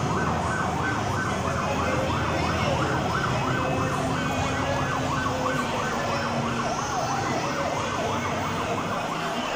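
Electronic siren of a child-sized play ambulance on the move, wailing rapidly up and down in pitch over and over; it stops near the end.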